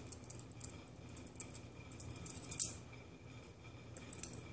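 Balisong comb being flipped slowly: its loose handles swing on the pivots, giving light metallic clicks and rattles, with one louder clack about two and a half seconds in as a handle lands.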